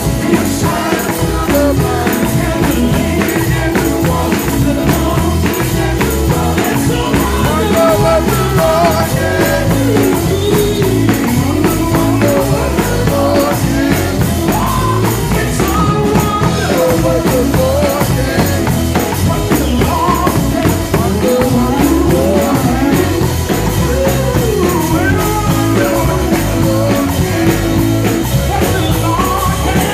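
Live gospel song: a lead vocalist sings over instrumental accompaniment with a steady, driving beat.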